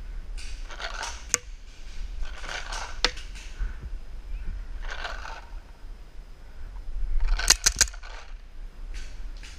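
Paintball marker firing a rapid string of about four sharp shots, the loudest sounds, about three-quarters of the way in. Around them come soft scuffing and rustling swishes every couple of seconds, with a few single clicks.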